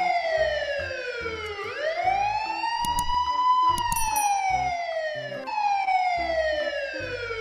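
Police siren wailing, its pitch sliding slowly down and back up in long sweeps, with a couple of sharp clicks partway through and low rhythmic pulses underneath.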